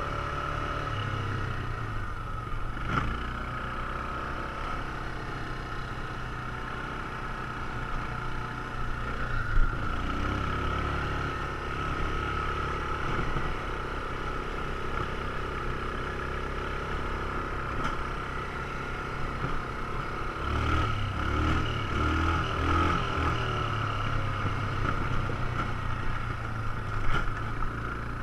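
ATV engine running while riding a dirt trail, its speed rising and falling, with a few sharp knocks and clatter as the quad jolts over bumps.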